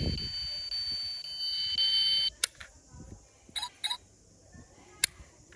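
A steady high electronic tone, alarm-like, that cuts off suddenly a little over two seconds in. Then a few sharp small clicks as the die-cast toy car's opening doors are worked by hand.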